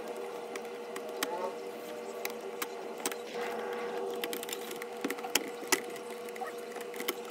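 Scattered small clicks and taps of tools on a TV circuit board as a shorted capacitor is removed, over a steady faint hum.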